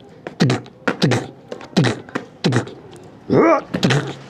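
A man's voice making a rapid series of short fight noises, one every half second or so, each dropping quickly in pitch. About three and a half seconds in comes a longer cry.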